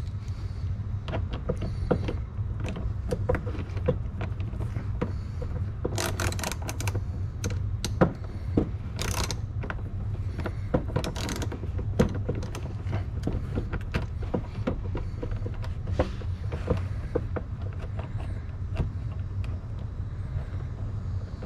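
Ratchet and 10 mm socket clicking in short runs while bolts are driven in, mixed with scattered knocks and scrapes of tools on metal, over a steady low hum.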